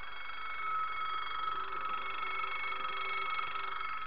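Model train locomotives running slowly on the layout: a steady, high electric whine made of several held tones.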